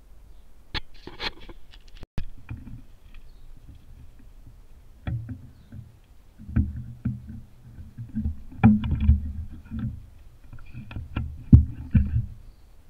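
Handling noise on a compound bow's mounted action camera as the bow is picked up and carried: irregular low rubbing knocks with scattered sharp clicks, a few clicks about a second in and the knocking thickening from about five seconds in.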